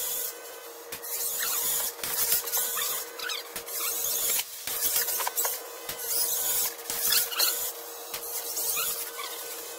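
FRC competition robot's drivetrain motors and mechanisms running as it drives and manoeuvres, played back at four times speed: a sped-up mechanical chatter in uneven bursts.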